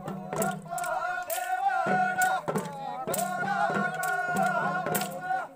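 A group of men singing a Kodava folk dance song together in long held notes, over regular sharp percussion strikes. The singing breaks briefly about two seconds in and stops near the end.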